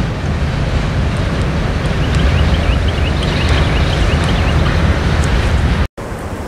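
Wind buffeting the microphone, a heavy low rumble, with a run of short high chirps partway through. The sound drops out for an instant near the end and then carries on a little quieter.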